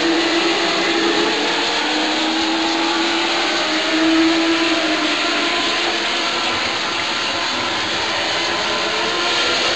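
A pack of INEX Legend cars racing, their four-cylinder motorcycle engines running hard at high revs, with several engine notes rising and falling over one another.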